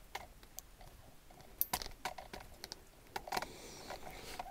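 Quiet, irregular light clicks and ticks from an ice fishing rod's reel being wound to bring a small lake trout up to the hole.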